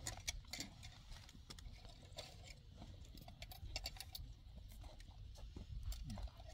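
Scattered light clinks and taps of spoons and forks on plates as people eat, irregular and uneven, over a steady low rumble.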